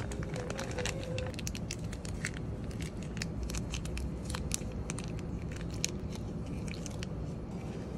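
Plastic food packaging crinkling and crackling in the hands as a food pouch is emptied over a foil tray and condiment sachets are squeezed, with many sharp, irregular clicks over a steady low background hum.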